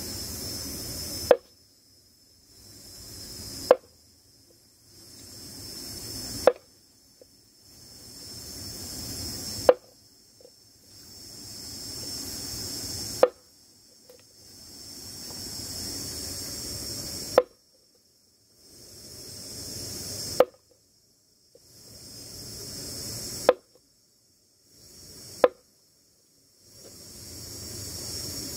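Heavy knife chopping a snake into pieces on a wooden board: single sharp chops every two to four seconds, nine in all. Between the chops a high insect drone fades out after each stroke and swells back.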